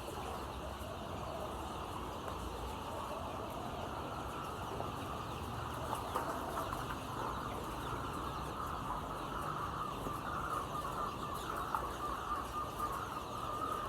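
A flock of layer chickens clucking and calling all at once, a dense continuous chatter of many birds.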